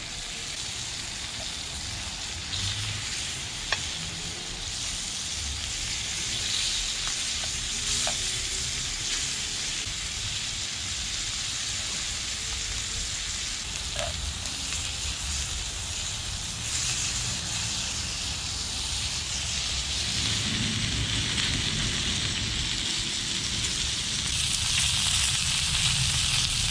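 Lamb chunks sizzling in browned butter in a pan over a campfire, a steady frying hiss that grows a little louder near the end. A few sharp clicks come from a utensil against the pan as the meat is turned.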